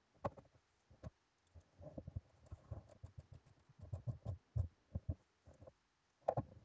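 Irregular light knocks and clicks of a socket on an extension bar being fitted and turned on the studs of a mega fuse holder bolted to a car's boot floor.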